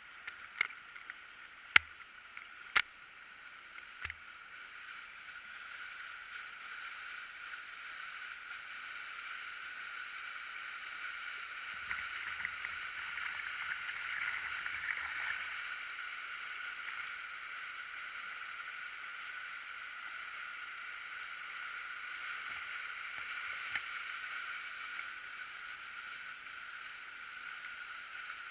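River waterfall: water rushing in a steady, hissing roar that swells over the first several seconds, with a few sharp clicks in the opening seconds.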